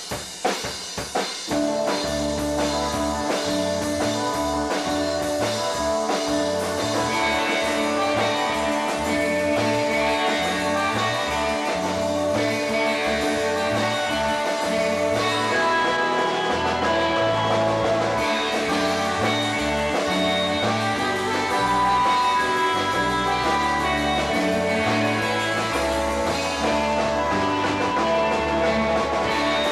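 Live rock band playing: electric guitars, bass guitar and drum kit. It kicks in after a few sharp drum hits in the first second or so, then plays steadily with a driving low rhythm.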